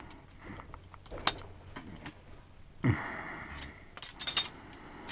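Scattered metal clicks and light rattling from an alpine touring ski adapter worked by hand as its elevator bushings are pressed out, with a quick cluster of clicks near the end.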